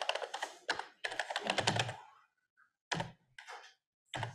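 Computer keyboard typing: quick runs of keystrokes, as when a web address is being entered, then a few single key presses near the end, with a dull thunk about a second and a half in.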